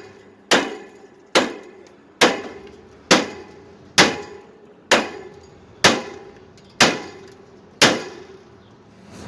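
An axe chopping into a window air conditioner: nine steady blows a little under a second apart, each a sharp metal clang with a short ring, stopping near the end.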